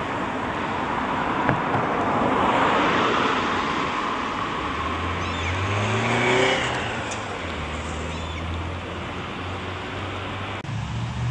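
Road traffic crossing a bridge close by. A passing vehicle's tyre and engine noise swells about two to three seconds in. Around six seconds in comes a vehicle with a rising engine note as it accelerates, and a low engine drone carries on through the second half.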